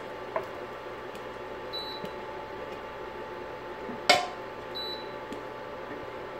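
Copper Chef induction cooktop giving short high beeps about every three seconds, its signal that the pot has been lifted off and heating has stopped, over a steady hum. Metal tongs clack once against the pot about four seconds in, the loudest sound.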